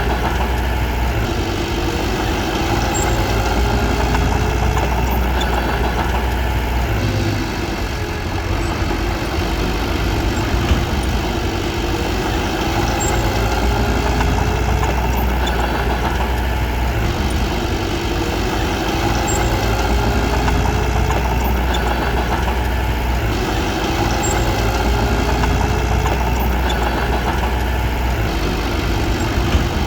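Diesel engine of a Komatsu D21P mini bulldozer running steadily, dipping slightly in level about a quarter of the way through.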